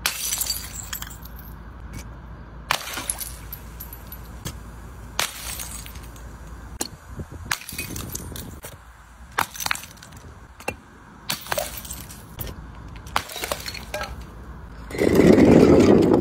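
Glass bottles shattering one after another on concrete, a series of sharp crashes with ringing and tinkling shards. Near the end comes a louder, denser crash lasting about two seconds.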